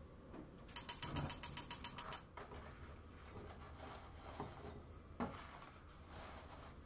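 Gas stove burner's igniter clicking rapidly, about eight clicks a second for a second and a half, as the burner is lit to boil water. Later, faint paper-towel handling and a single light knock.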